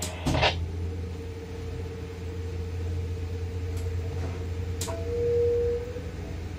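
Tower crane machinery heard from the cab: a steady low hum with a held whining tone that swells for about a second near the end, and a single sharp click just before the swell.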